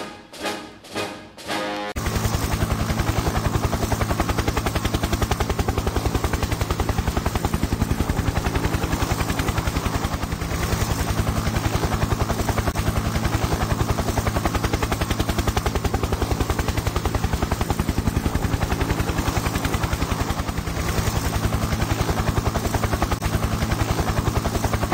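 Orchestral music ends with a few pulses in the first two seconds. Then a dubbed battle sound effect takes over: a rapid, steady pounding over a low hum, helicopter-style rotor chop and gunfire, dipping briefly about ten seconds in and again near twenty-one seconds.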